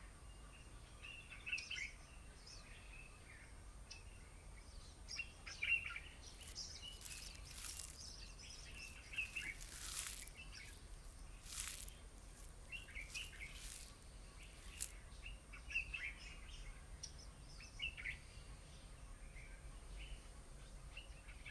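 Wild birds chirping and calling in short scattered bursts over faint open-air ambience, with a few sharp clicks in the middle.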